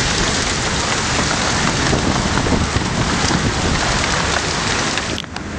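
Heavy storm rain mixed with hail pelting down: a dense, loud hiss with scattered sharp ticks. It drops away for a moment near the end.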